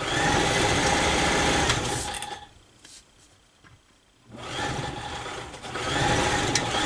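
Electric sewing machine motor running under foot-pedal control, stopping about two and a half seconds in and starting again about two seconds later, running louder again near the end.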